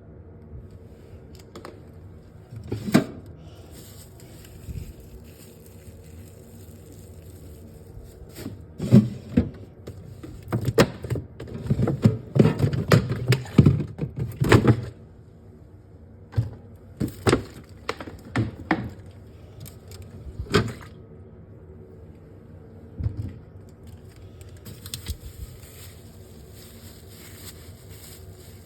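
Irregular knocks, clunks and rattles of shelves, drawers and containers being handled during a fridge clean-out, busiest in a run from about nine to fifteen seconds in, over a steady low hum.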